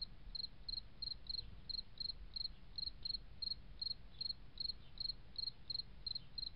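A cricket chirping in a steady rhythm, about three short high chirps a second, over a faint low rumble.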